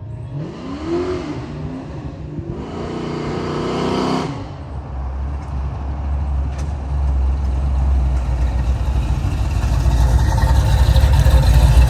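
LS1 V8 engine in a car, revved twice in quick succession, then running with a deep exhaust rumble that grows steadily louder as the car drives closer, loudest near the end.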